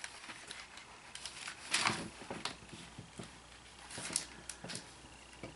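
Pages of a Bible being turned: a few short, soft paper rustles, the loudest about two seconds in and a few more near the end.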